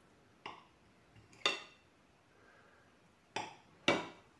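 Kitchen knife cutting through a glazed cake and knocking against the plate beneath it: four short knocks with a brief ring, the last two close together near the end.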